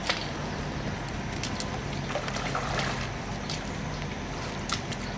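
Footsteps wading through shallow muddy floodwater, with scattered sharp splashes and sloshing.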